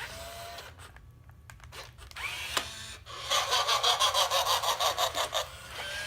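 Robosapien V2 toy robot's small gear motors whirring and rattling as it moves. The sound is quieter at first, then turns into a loud, fast-pulsing buzz from about three seconds in that stops shortly before the end.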